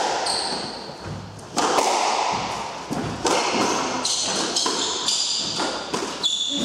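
Squash rally: the ball struck by rackets and smacking off the court walls again and again at an uneven pace, with high squeaks from players' shoes on the hardwood floor between the hits.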